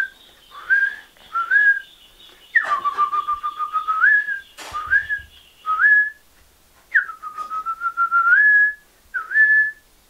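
A man whistling an imitation of a monkey's call, the call a lookout monkey gives while watching over the troop. Each phrase is one long note that drops, holds with a fast flutter and lifts at the end, then two short rising notes; the phrase comes three times.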